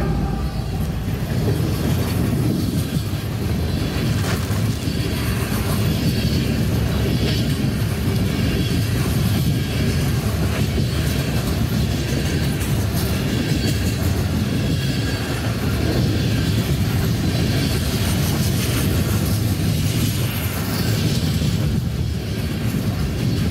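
CN mixed freight train's cars (boxcars, tank cars, covered hoppers) rolling past: a steady low rumble of wheels on rail with clickety-clack, heard from inside a vehicle.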